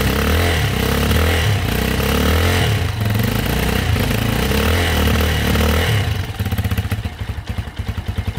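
Bashan MotoMax 250 single-cylinder four-stroke engine revved with the throttle, its pitch rising and falling. About six seconds in it drops back to a slow, pulsing idle that is set too low, the cause of the bike bogging down and cutting out.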